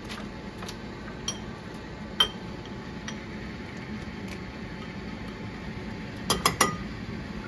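Metal spoon clinking against a small ceramic bowl as potato starch is spooned in: a sharp clink about two seconds in and a quick run of three clinks near the end, with a few lighter taps between.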